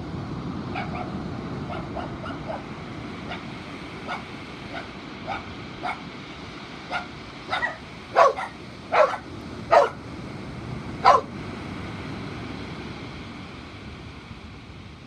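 A dog barking repeatedly, about fifteen short barks at uneven intervals. They grow louder, with the loudest four between about eight and eleven seconds in, over a steady low rushing background.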